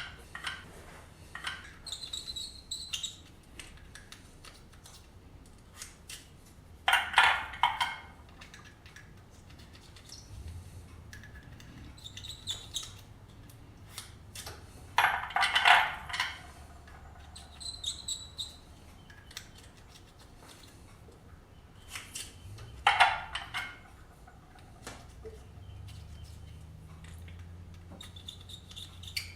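Metal reloading tools and brass rifle cases being handled on a bench: scattered light clicks and brief metallic pings, with three louder scraping rasps of about a second each.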